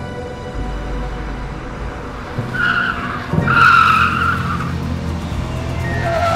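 Car tyres screeching twice in a film car-chase soundtrack, the second screech longer, over a steady low rumble.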